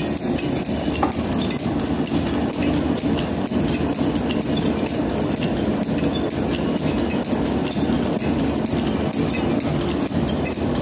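Metal planer running steadily, its tool taking a cut along a flame-cut steel plate, with steel chips clinking as they drop away onto the machine table.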